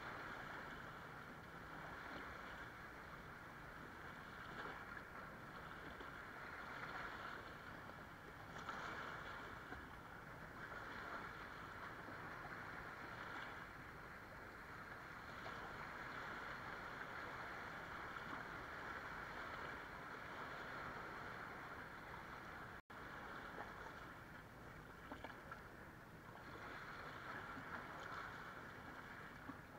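Small waves lapping and washing over sand and rocks at the shoreline, swelling and easing every few seconds. The audio drops out for an instant about two-thirds of the way through.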